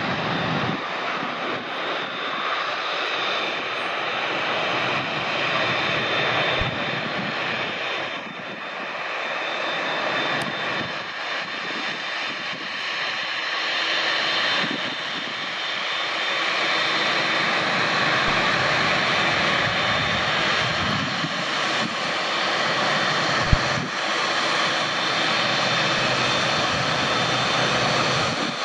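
Jet airliner engines running, a steady rushing noise with a faint high whine that swells slightly through the second half. A single sharp click sounds about three-quarters of the way through.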